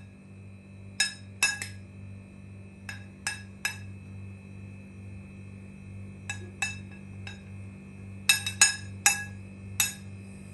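Metal spoon clinking against an oval glass baking dish as it presses down a layer of crumbled chocolate cake and nuts. About a dozen sharp clinks come in small groups of two or three.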